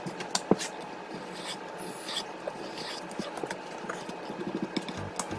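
Soft kitchen handling sounds of striped jack being sliced into sashimi with a knife on a wooden cutting board: scattered light taps and clicks of the blade and fish on the board, with a few brief scrapes.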